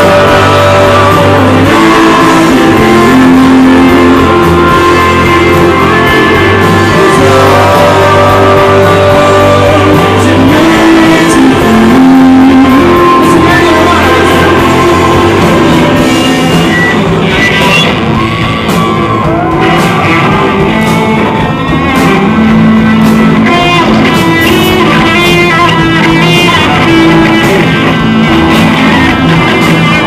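Live rock band playing loud, with electric guitars and a man singing, and a run of quick repeated guitar notes in the second half.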